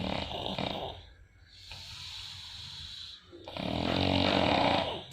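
A person snoring. First comes a shorter snore, then a quieter breath, and about three and a half seconds in a long, loud snore with a low buzz.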